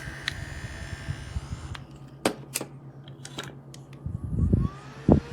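Small handheld electric fan running with a steady hum, while sharp clicks and knocks from handling the plastic fan sound every so often. A short low rumble follows about four seconds in.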